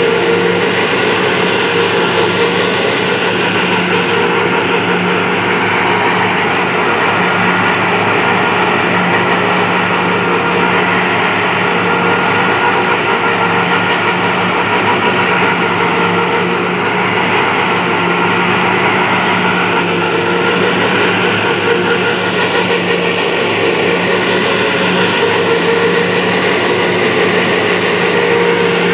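Tractor engines and a tractor-drawn forage harvester running steadily under load while chopping Mombaça grass, a constant drone.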